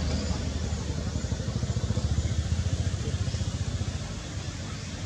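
A small engine idling off to one side: a low rumble with a fast, regular pulse. Faint high chirps sound above it.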